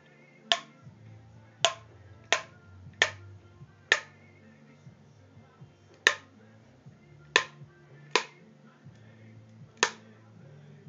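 Tennis racket strings under tension being cut one by one, each parting with a sharp snap. There are nine snaps at uneven spacing, with gaps of about two seconds near the middle and towards the end.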